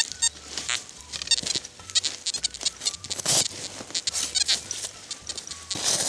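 A shovel digs into snowy forest soil, with a series of scrapes and strikes; the strongest comes about halfway through and another near the end. Short warbling tones from a metal detector sound now and then among the strokes.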